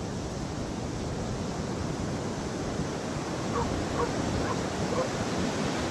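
Ocean surf washing on a beach, a steady rush of noise with some wind. About halfway through, four faint short calls sound in quick succession.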